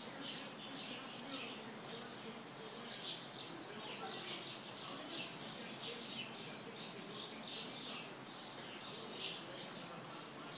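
Small birds chirping continuously, a dense run of short high chirps.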